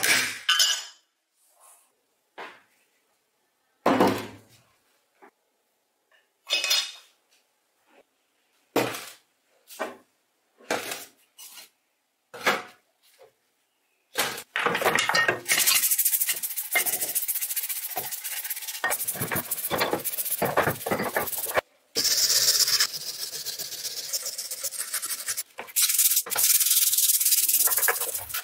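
A series of separate metal clinks and knocks, then, from about halfway, continuous rhythmic scrubbing as the abrasive side of a sponge is worked over the rusty steel housing of a bench grinder's motor in soapy water.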